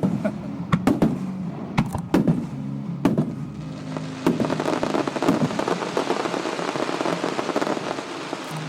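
Aerial fireworks shells bursting: about six sharp bangs over the first four seconds, then a dense, rain-like crackling of crackle-effect stars from about four seconds in that fades near the end.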